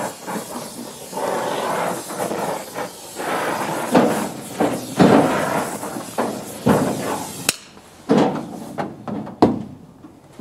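Irregular knocks and bangs on a car's sheet-metal body, with scraping and rattling between them, as window trim and metal are worked loose by hand tools; one sharp metallic click about seven and a half seconds in.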